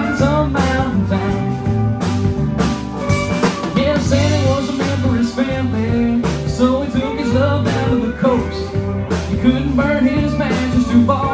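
Live rock band playing: electric bass, electric guitars and a drum kit with a steady beat, and a lead voice singing over them.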